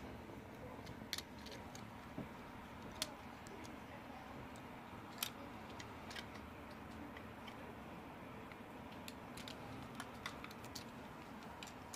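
Irregular light plastic clicks and taps from a DualShock 4 controller being handled and taken apart by hand, over a faint steady hiss.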